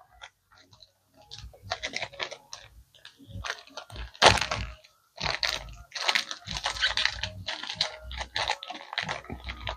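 Sealed product packaging being handled and opened: irregular crinkling, clicking and crackling, with one loud crackle about four seconds in.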